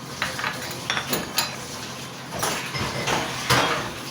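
Metal spoon clinking and scraping against a cooking pot: a few sharp taps in the first second and a half, then longer scraping strokes.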